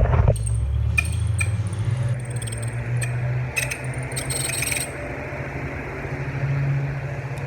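Britânia Turbo electric fan motor running just after being switched on, with a steady low hum and intermittent high-pitched, rat-like squeaking and scraping, the longest stretch about halfway through. The technician puts the noise down to the motor having run completely dry of lubrication.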